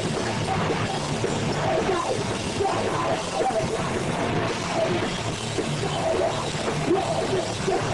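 Live rock band playing loudly: electric guitar through an amplifier and a drum kit with crashing cymbals.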